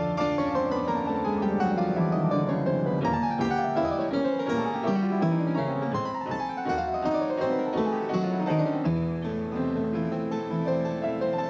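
Instrumental music with repeated fast runs of notes falling in pitch over a steady lower line.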